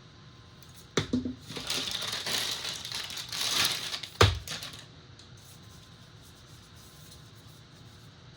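Laptop packaging being unwrapped: crinkling and tearing for about four seconds, with one sharp knock near the end.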